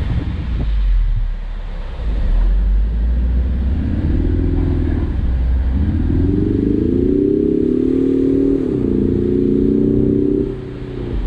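Ford Mustang convertible's engine pulling up a steep road. Its note climbs as it accelerates, drops suddenly about nine seconds in, then holds steady before easing off near the end. Low wind rumble comes through the open top throughout.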